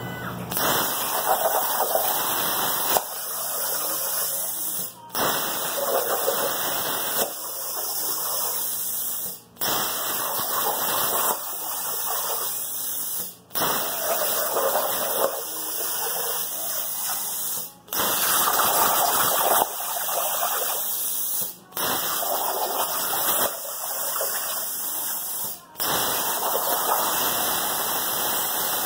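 Plasma cutter's arc and air jet hissing steadily as the torch on a cutting table burns through sheet metal. The hiss drops out briefly every few seconds.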